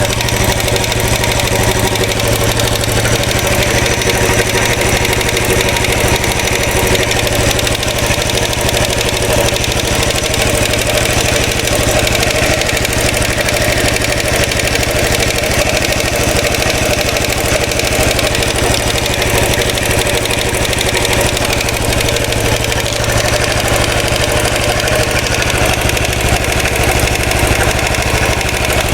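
Royal Enfield Classic 500 single-cylinder engine idling steadily, with the oscillating rattling noise the owner has yet to trace after curing the decompressor noise.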